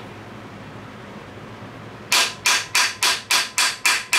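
Hammer striking a bearing driver to tap a new camshaft bearing into the bore of a Cummins 4BT engine block. A quick, even series of about eight metallic taps, roughly three a second, starting about halfway through, each with a slight ring.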